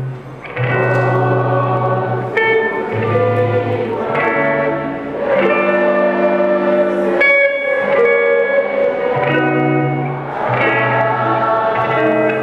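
Live band music with an electric guitar playing over held chords and a bass line that changes every second or two.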